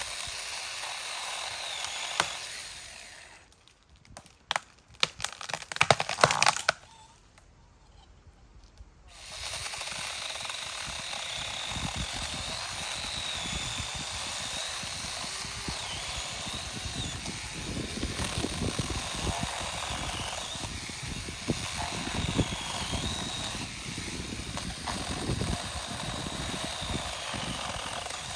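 Saker 6-inch battery mini electric chainsaw running and cutting through a thick tree branch, its high motor whine wavering as the chain bites into the wood. The saw stops about three seconds in, there is a burst of clattering knocks, and it starts cutting again about nine seconds in, running steadily to the end.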